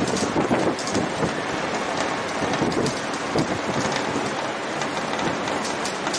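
Strong wind at the top of a tall tower buffeting the microphone: a steady loud rush broken by frequent, irregular low thumps of gusts.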